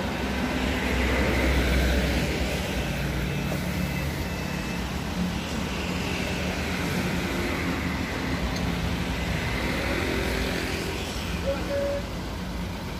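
Hino 500 truck's diesel engine idling, a steady low rumble. Rushing road noise swells and fades about three times over it.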